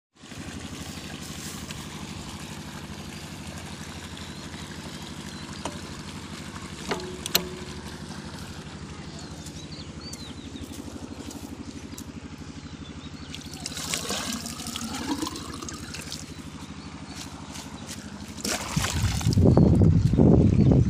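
Stationary diesel engine running steadily at an even beat, driving an irrigation water pump. For the last couple of seconds a louder splashing of water takes over, as water is poured from a jug toward a barrel.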